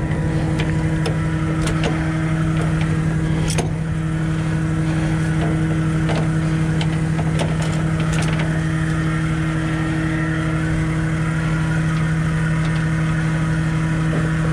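Tow truck's engine running at a steady, unchanging pitch while driving, a constant low drone, with scattered light clicks and knocks over it.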